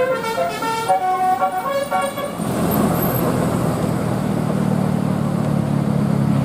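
Bus 'telolet' horn, a multi-tone musical air horn, playing a quick tune of changing notes that stops about two seconds in. Then the bus's diesel engine runs loudly with a steady low hum.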